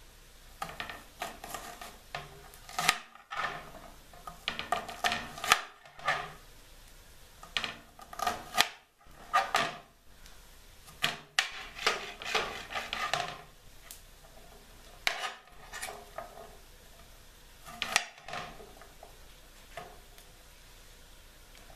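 Chef's knife chopping a yellow onion on a hard cutting board: irregular runs of sharp knocks as the blade cuts through and strikes the board, with short pauses between runs. The knife is not very sharp.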